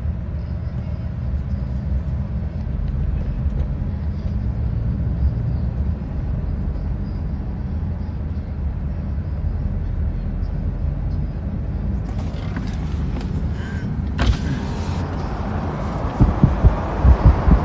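Steady low rumble of road and engine noise inside a car's cabin, picked up by a phone's microphone. About two-thirds of the way in a sharp click comes, and near the end uneven bumps and rubbing are heard as the phone is handled and moved.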